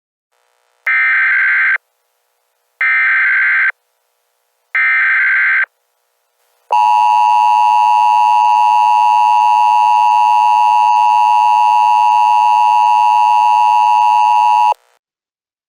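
Emergency Alert System test tones: three short, loud bursts of SAME digital header data, then the steady two-tone EAS attention signal held for about eight seconds before cutting off abruptly.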